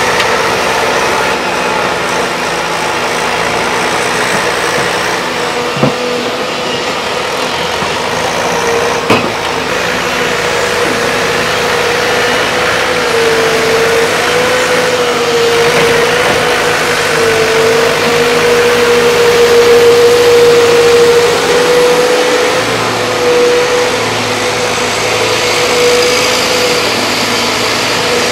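Volvo excavators' diesel engines running steadily under work, with a steady whine over the engine note. Two short sharp knocks, about six and nine seconds in.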